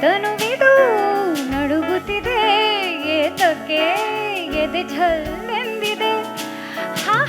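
Live jazz-style arrangement of an Indian song: a female singer holds and bends the melody in sliding, ornamented runs over instrumental accompaniment with sustained chords.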